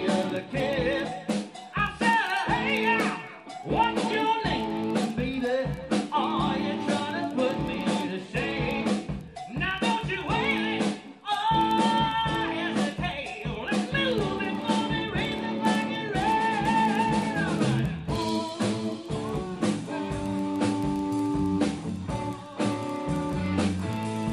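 A live band playing a song: a singer over guitar and drums with a steady beat.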